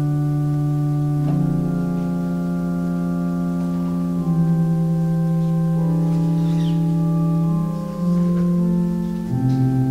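Organ playing slow, sustained chords that change every few seconds.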